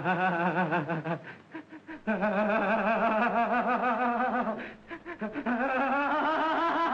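A man's hysterical laughter, high and wavering, in long peals that break off briefly twice.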